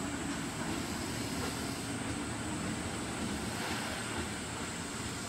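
JR 205 series electric train moving along the platform with a steady rumble of motors and wheels on the rails.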